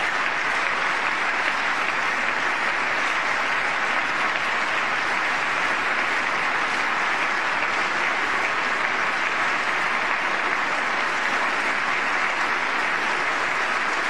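Large audience applauding steadily, a sustained ovation in answer to a line of a speech.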